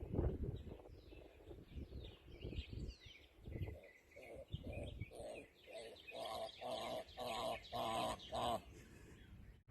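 Domestic fowl calling: a run of about ten repeated calls, roughly two a second, that grow louder over several seconds, with small birds chirping.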